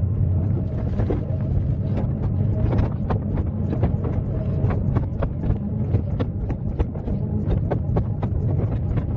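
Excavator engine running steadily, with frequent sharp knocks and clatter throughout.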